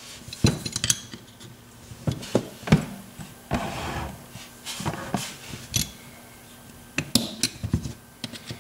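Small metal clicks, clinks and knocks, irregular and scattered, from a brass drawer lock and small tools being handled and set down on a work surface, with a brief scrape a little before the middle.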